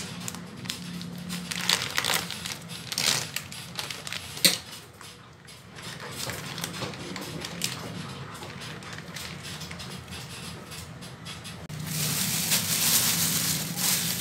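Plastic food packaging crinkling and crackling as it is pulled open and handled, with sharp irregular crackles in the first few seconds. Near the end comes a louder rustle of a thin plastic bag.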